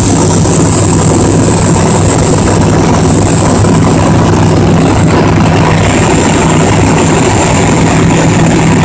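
Light single-engine propeller aircraft in flight, heard from inside the cockpit: the engine and propeller drone steadily, with a thin high whine above.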